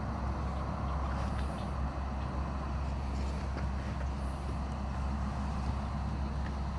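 Steady low drone of the electric blower fan that keeps a large inflatable cat figure inflated, running without change; a few faint light taps in the first half.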